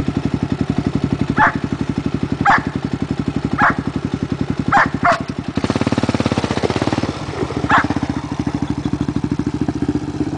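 Small dirt-bike engine running steadily close by, with fast even firing pulses; just past halfway it surges into a louder, rougher sound before settling again. Short high calls sound every second or so over the top.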